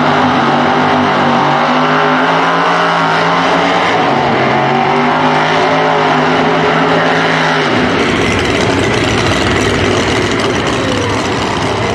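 Pro Nitrous drag cars' nitrous-fed V8 engines held at high revs with a steady, even pitch during a burnout. About eight seconds in this gives way to a rougher, noisier full-throttle engine sound as a car launches down the drag strip.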